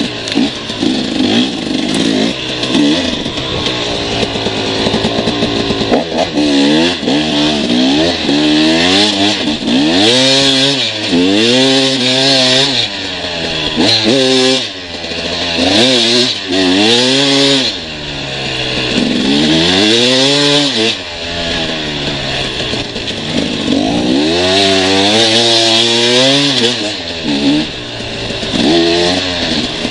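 Motorcycle engine revving up and dropping back again and again, its pitch climbing and falling every couple of seconds as the throttle is worked.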